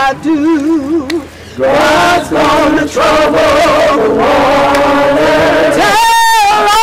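A single voice sings with a wide, wavering vibrato. About a second and a half in, a group of voices answers together in a chant, and near the end one voice comes back alone on a long held note, in call-and-response.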